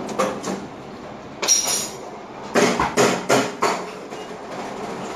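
Sharp clinks and knocks of hard objects. One with a short metallic ring comes about a second and a half in, then four follow in quick succession a little past the middle.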